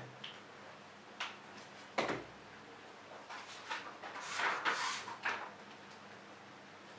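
Quiet handling and movement noises from a person in a small room: a few light clicks and a knock in the first two seconds, then about two seconds of rustling and shuffling with small ticks, which die away near the end.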